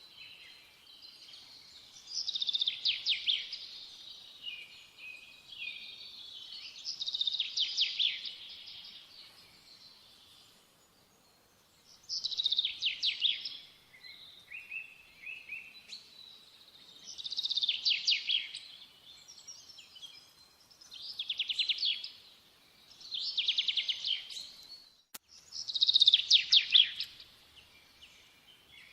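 A songbird singing: a fast trilled phrase comes every few seconds, about seven times, with softer chirps between.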